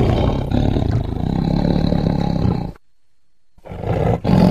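Tiger growling: one long growl that cuts off suddenly a little under three seconds in, then after a short pause a second, shorter growl.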